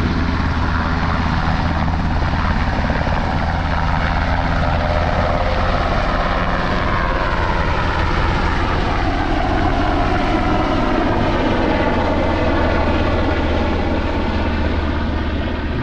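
Firefighting helicopter flying close by, loaded with lake water for a fire. A loud, steady low rotor hum, with engine tones that glide slowly in pitch as it moves.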